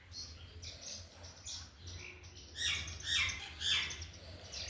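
Small birds chirping and squeaking in a chatter of many short overlapping calls, with three louder calls a little past the middle.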